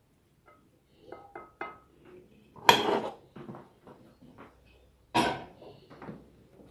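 Serving utensils clinking and clattering against a ceramic plate as stir-fried vegetable toppings are put onto noodles: a few light ringing clinks about a second in, then two louder clatters, one near the middle and one about two-thirds through.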